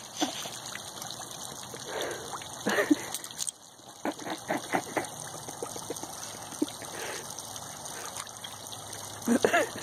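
Steady trickling and splashing of water in a shallow garden pond, with a few short soft sounds scattered through it and a slightly louder cluster near the end.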